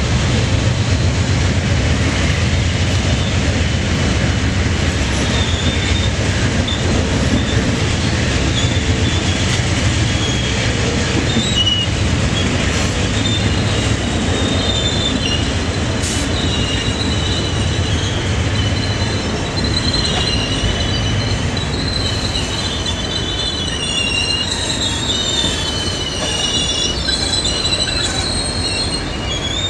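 Amtrak Auto Train's bilevel Superliner passenger cars rolling past with a steady low rumble. High-pitched squealing from the wheels and brakes starts partway through and grows stronger and more frequent as the train brakes to a halt.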